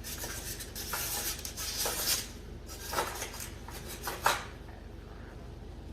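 Hard parts being handled during air-conditioner disassembly: scraping and rubbing for about two seconds, then two sharp knocks about three and four seconds in.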